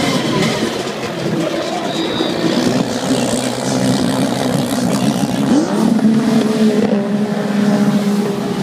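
A pack of racing jetskis' engines revving together on the start line, their jets throwing spray, then rising in pitch as the whole field accelerates away at the race start about halfway through.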